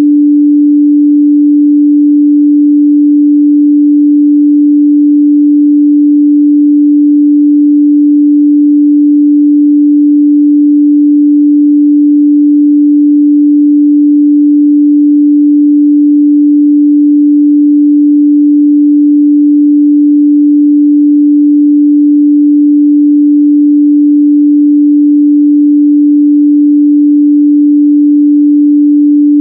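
A steady, loud 293 Hz sine-wave test tone: one pure, unchanging pitch held without a break.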